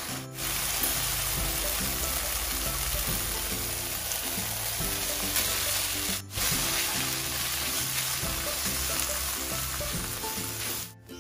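Spice paste sizzling in a hot non-stick wok while a wooden spatula stirs and scrapes it, with light background music underneath. The sound drops out briefly twice, at edit cuts.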